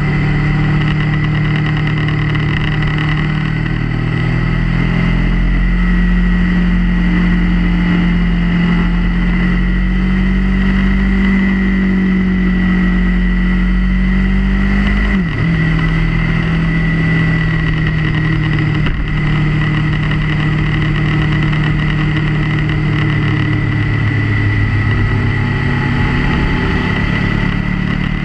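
Motorcycle engine running on the road, its pitch creeping up slowly, then dropping quickly about halfway through as at a gear change, before running on steadily. A steady high whine sounds throughout.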